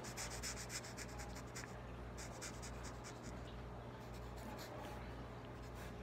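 Sharpie marker scratching on paper as letters are coloured in, in quick back-and-forth strokes: a run in the first second and a half, another around two to three seconds in, and a few scattered strokes later. Faint.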